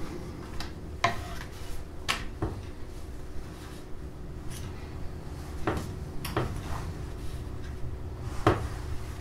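A wooden spatula and tortillas clacking and scraping on a nonstick griddle as corn tortillas are turned: a handful of short, separate knocks over a low steady hum.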